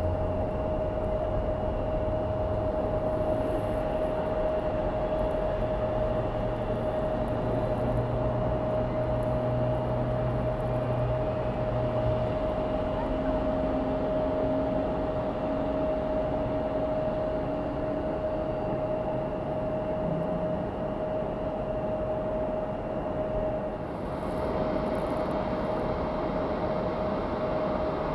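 Steady drone of jet aircraft engines running at the airport: a constant whine over an even rumble, with a fainter low hum that comes and goes in the first half.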